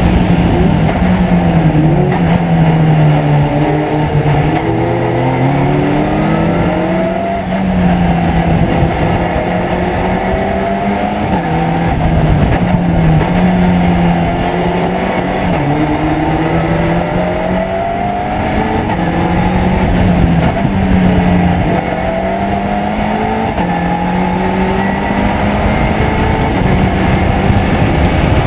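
Race car engine heard from inside an open cockpit on track. The revs rise and drop back again and again as the car accelerates, shifts gear and brakes through the corners.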